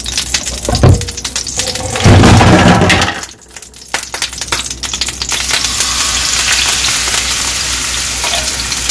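Flour batter frying in hot coconut oil in a stainless steel pan: a steady sizzling hiss that starts about four seconds in, as the batter is poured. Before it come a couple of dull knocks from handling the pan and container.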